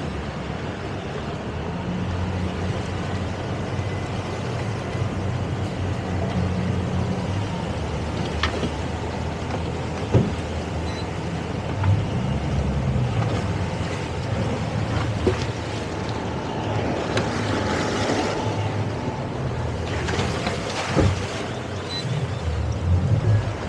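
Twin Suzuki outboard motors running under throttle. Their low drone shifts in strength several times as the throttles are worked, over rushing water and wind, with a few sharp knocks.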